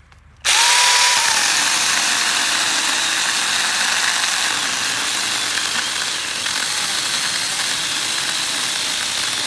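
Saker 20-volt cordless mini electric chainsaw starting suddenly about half a second in, with a brief motor whine, then running steadily as its chain cuts through a holly bush stem.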